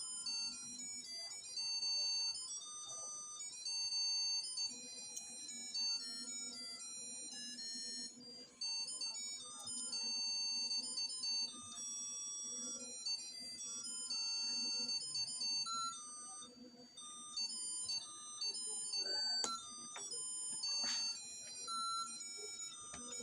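Simple electronic melody of plain beeping notes, like a music chip or ringtone tune, playing without a pause.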